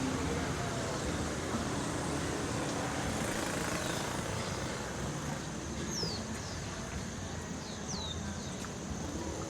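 Roadside traffic noise, a steady hum of passing vehicles. Short, high, falling chirps come through about six and eight seconds in.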